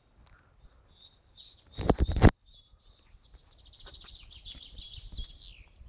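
A songbird singing: scattered chirps, then a long fast trill of repeated notes that drops in pitch at the end. About two seconds in there is a short loud knock or bump, the loudest thing heard.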